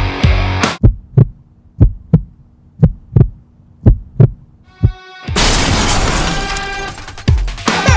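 The rock music drops out and a heartbeat sound effect beats in paired thumps, about one pair a second, over a faint low hum. Just past five seconds a rock track with guitar comes back in loudly.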